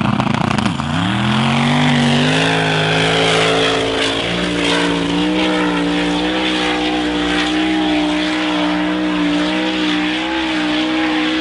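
V8 engine of a hill-climb SUV launching up a sand dune: the revs dip briefly about a second in, then rise quickly and hold high and steady at full throttle, with a slight wobble in pitch as it climbs.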